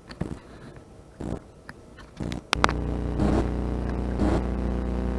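A few light knocks and clicks, then about two and a half seconds in a boat motor starts and runs steadily, turning the boat around.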